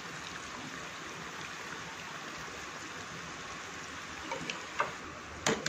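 Pumpkin manchurian balls deep-frying in hot oil in a kadhai: a steady sizzle, with a few small clicks near the end.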